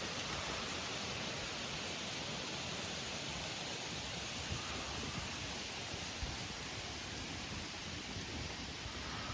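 Steady, even outdoor hiss of rushing air or rain-like noise, with no distinct sounds standing out.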